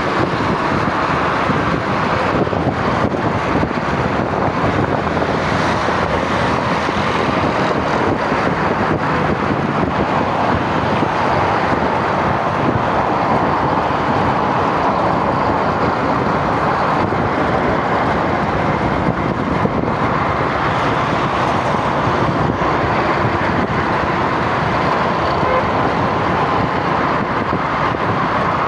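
Steady road noise of a moving vehicle, an even rush of engine, tyres and air with no distinct events.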